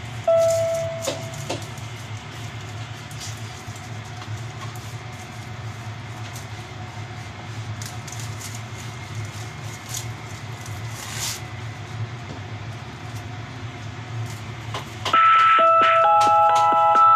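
Steady low hum with soft clicks and rustles of a bamboo sushi mat being handled as a sushi roll is pressed and rolled. About fifteen seconds in, louder background music with bell-like chime tones starts.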